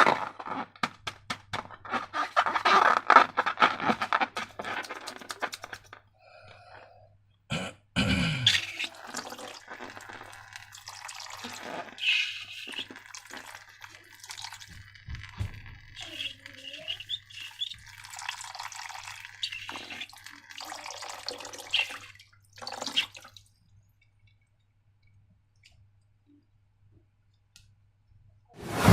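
Slime being handled: fast sticky crackling for the first few seconds, then a thump and a stretch of irregular wet squelching with short rubbery squeaks. It goes almost silent for several seconds before a loud sound right at the end.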